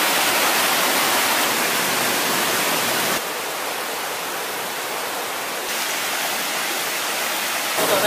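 Steady rushing of a rocky mountain stream and waterfall, a loud even hiss of water. The level drops abruptly about three seconds in and rises a little near six seconds.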